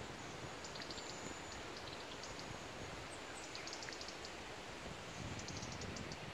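Outdoor ambience: a steady low background rumble with faint, high bird chirps in short quick runs.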